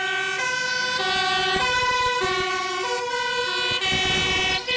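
Two-tone sirens of Dutch fire engines turning out on an emergency call, the high and low notes alternating steadily, with more than one siren overlapping.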